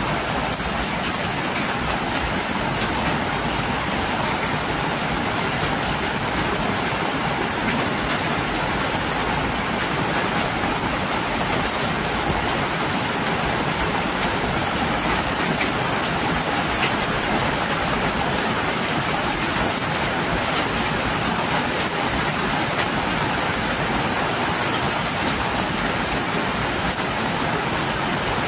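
Heavy rain falling steadily, with runoff streaming off a roof edge and splashing onto potted plants and the wet road.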